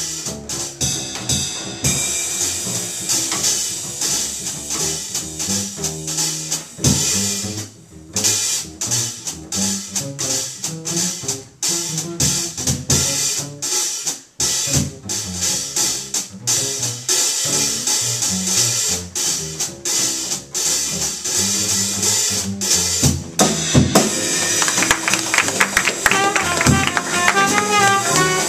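Small jazz combo playing an up-tempo tune: upright bass walking under a drum kit with constant cymbal work. A saxophone line comes in a few seconds before the end.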